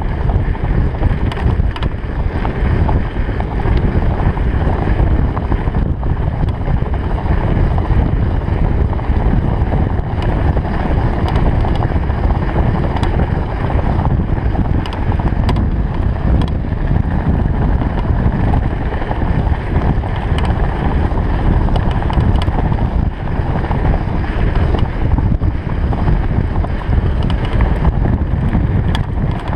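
Wind buffeting an action camera's microphone during a fast mountain bike descent, over the rumble of the tyres rolling on the road. Scattered small clicks and rattles run through it.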